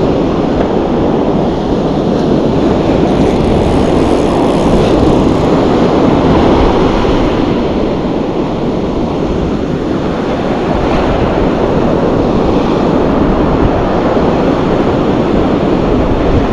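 Steady roar of beach surf and wind buffeting the microphone, swelling and easing gently without a break.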